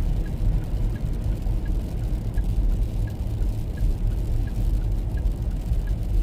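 Low, steady rumble inside a car's cabin, with a faint ticking about one and a half times a second, like a turn-signal indicator clicking.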